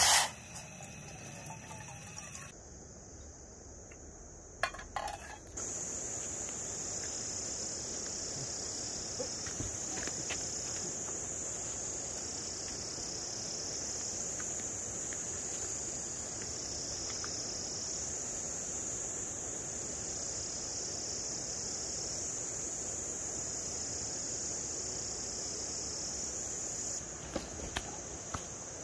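Insects singing in a steady high-pitched chorus that swells and eases every couple of seconds. It starts about five seconds in and stops shortly before the end. A brief loud rush of noise comes at the very start.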